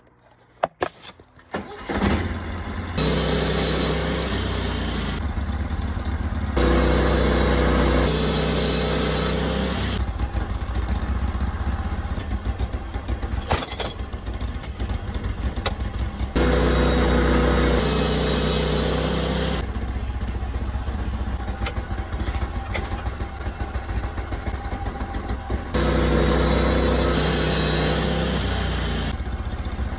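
Sawmill engine running as a log is sawn, its sound changing abruptly every few seconds, after a few clicks in the first two seconds.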